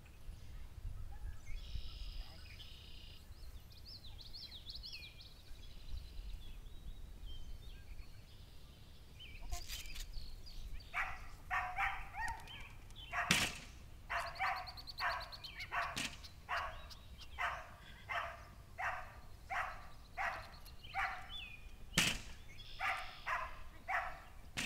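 Dog barking over and over, about one and a half barks a second, from about eleven seconds in, with a few sharp knocks among the barks. Before the barking there are faint bird chirps over wind rumble on the microphone.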